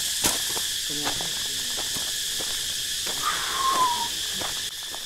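Steady high-pitched drone of insects, with faint distant voices underneath and a short falling whistle about three seconds in.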